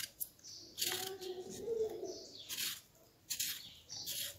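Hand vegetable peeler scraping the skin off a raw potato in short strokes, about one a second.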